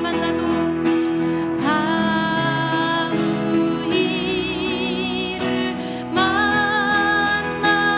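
A woman singing a slow worship hymn over keyboard accompaniment, holding long notes with vibrato.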